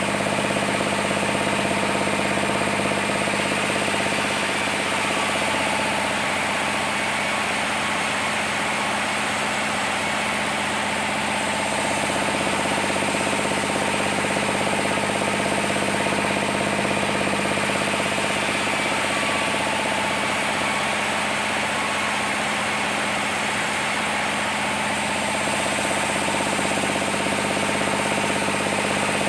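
Sawmill machinery running steadily, an even engine-like drone with several held tones over a dense mechanical noise.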